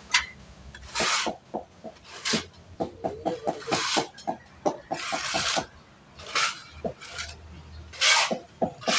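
Steel trowel scraping cement mortar across the back of a ceramic floor tile in repeated strokes, about one every second or so. Between the strokes come rapid short knocks, in keeping with tiles being tapped down with a hammer.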